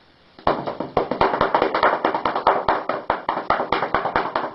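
A hand rapidly patting a cat's rump: a fast, even run of slaps, about seven a second, starting about half a second in.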